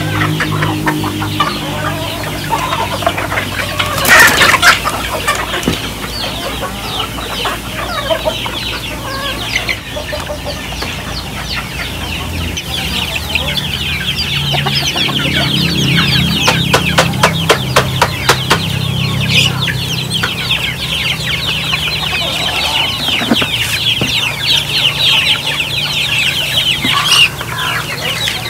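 A flock of Philippine native chickens clucking while they feed, with a loud burst about four seconds in; then a crowd of young chicks peeping densely in high short chirps, with a run of quick clicks partway through.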